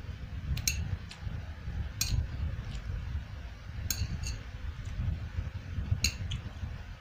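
Metal chopsticks clicking against a plate and each other while picking up noodles: short sharp clinks at irregular intervals, some in quick pairs, over a low steady rumble.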